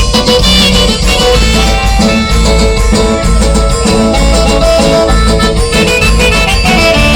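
Band playing an instrumental passage of a chilena, with melody lines over a pulsing bass and a steady beat.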